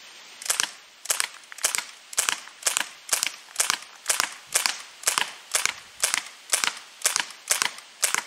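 Daisy Model 74 CO2 BB rifle firing a rapid, steady string of sharp pops, about two shots a second, roughly sixteen in all.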